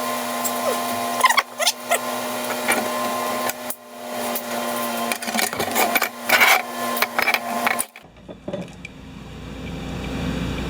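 Wire-feed (MIG) welder arc welding: a steady crackling buzz with spitting clicks, in two runs with a short break about four seconds in, stopping about eight seconds in.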